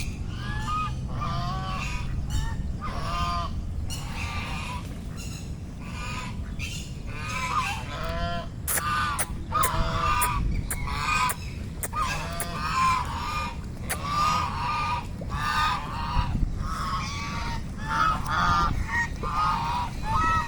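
A flock of domestic waterfowl calling over and over while they feed, many short rising-and-falling calls overlapping, with a few sharp clicks.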